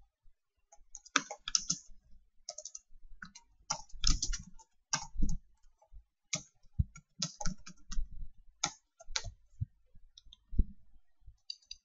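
Typing on a computer keyboard: irregular keystrokes, some in quick runs, with short pauses between.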